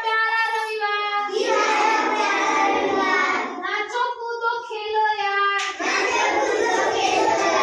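A group of young children chanting a Hindi rhyme together in a sing-song, drawing out long held notes.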